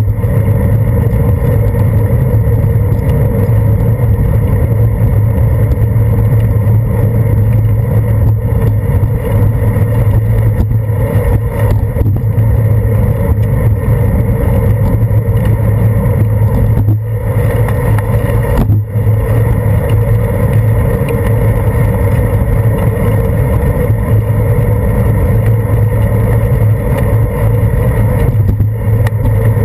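Steady, loud rumble and hum from a handlebar-mounted action camera on a bicycle riding over wet pavement: tyre and road vibration carried into the camera, with wind. The noise briefly drops twice about two-thirds of the way through.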